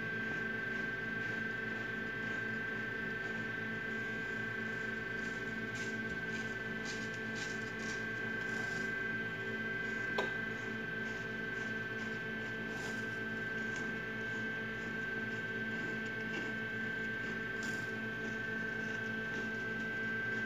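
A steady electrical hum with a high whine runs throughout, under faint light clicks and rustles as chicken eggs are turned by hand on straw bedding; one sharper click comes about halfway.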